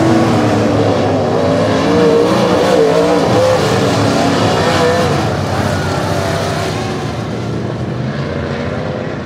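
Several dirt-track modified race cars' V8 engines running loudly around the oval, their pitch rising and falling through the corners. The sound grows fainter after about six seconds.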